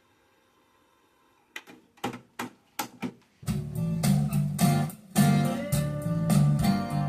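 A quiet gap between songs, then a rock song begins: a few single plucked guitar notes starting about one and a half seconds in, then the full band with strummed guitar and bass from about three and a half seconds.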